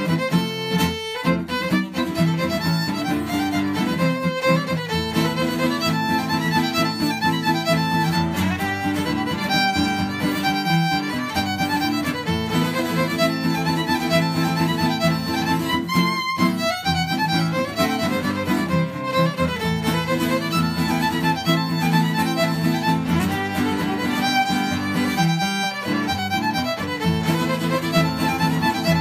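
Solo fiddle playing a French-Canadian reel in a continuous stream of bowed notes, over acoustic guitar accompaniment.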